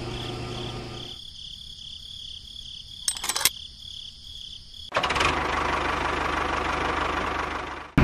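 A small motor hums steadily and fades out about a second in. A few sharp clicks come about three seconds in. From about five seconds a louder, steady, noisy motor sound runs until just before the end.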